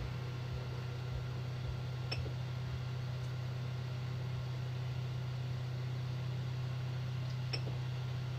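A steady low hum, like a fan or small appliance running, with two faint clicks, one about two seconds in and one near the end.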